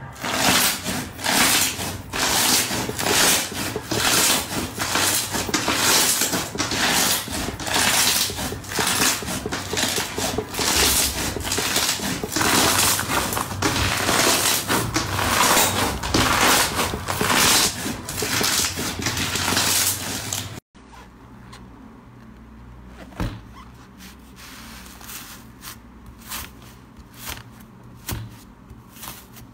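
Hands squeezing and kneading a crunchy white slime packed with small beads and sprinkles, giving dense crackling crunches about twice a second. About twenty seconds in it cuts to a much quieter soft squishing and tearing of a thick yellow-and-orange slime, with a few light clicks.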